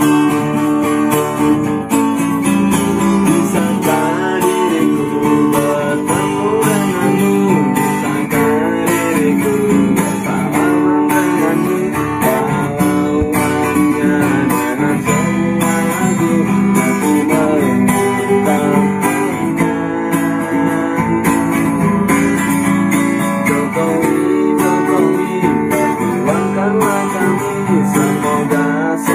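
A song accompanied by strummed acoustic guitar, with a voice singing the melody.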